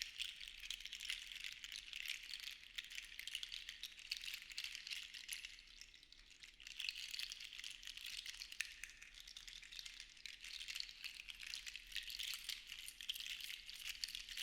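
Sea shells shaken and clattering together: a dense stream of small clicks that swells and eases, with a brief lull about six seconds in.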